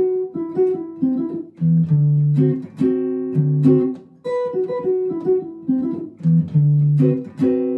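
Archtop jazz guitar played clean, picking a phrase of single notes and chord tones built on a four-note shape heard as the 7th, 9th, 3rd and 13th of a D9 chord. It breaks off briefly about four seconds in, then a second, similar phrase is played.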